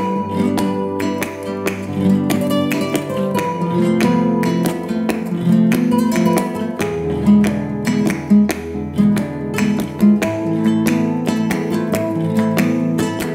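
Background music of strummed acoustic guitar with a steady rhythm.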